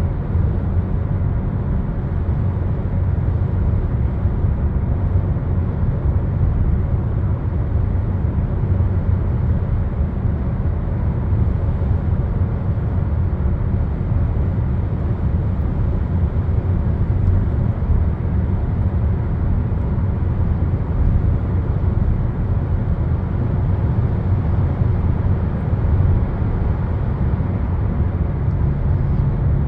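Steady low rumble of a moving vehicle, even and unbroken throughout.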